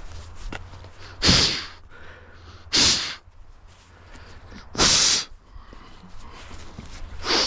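A walker's heavy breathing close to the microphone: four loud breaths, one every one and a half to two seconds.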